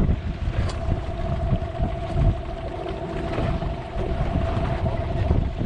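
Small fishing boat's engine running steadily, with wind buffeting the microphone.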